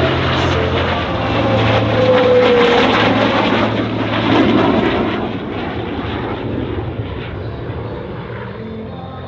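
Aircraft engine noise from a military plane flying past, loudest about four seconds in and then fading away.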